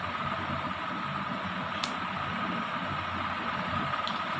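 Steady room noise: an even hiss with a thin, steady high whine through it, and a single light click a little under two seconds in.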